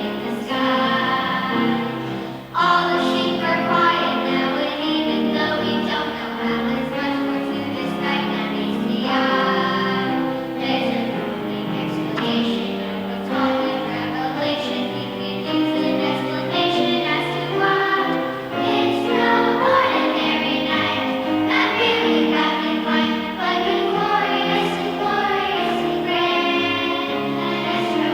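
A choir singing, with a brief break about two and a half seconds in.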